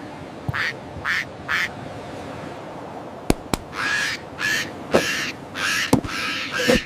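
Seagull squawks as cartoon sound effects: three short calls, then a run of longer harsh calls, with a few sharp clicks in between.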